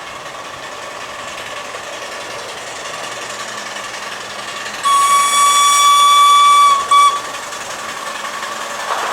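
Whistle of a 7¼-inch gauge miniature locomotive, one long single-note blast of about two seconds about halfway through, then a short toot, over the steady noise of the train running.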